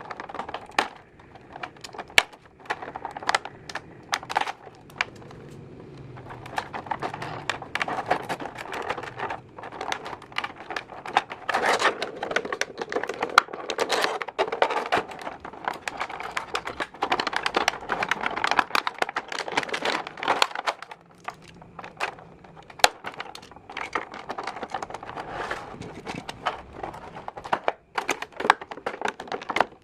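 Hands handling a plastic Optimus Prime transforming toy and its packaging: many sharp plastic clicks and snaps, with stretches of crinkling.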